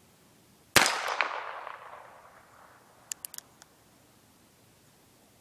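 A single shot from an H&R .22 revolver firing .22 LR about a second in, a sharp crack with an echo trailing off over more than a second. A few light clicks follow about three seconds in.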